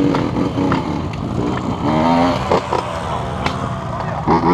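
Dirt bike engine running at low speed as the bike rolls off over dirt, with a steady low rumble and a few clicks; voices come in briefly about two seconds in and again near the end.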